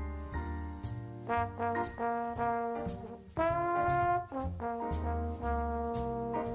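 Background music: jazzy brass lead, trombone-like, playing held notes over a steady beat, with one note scooping up in pitch partway through.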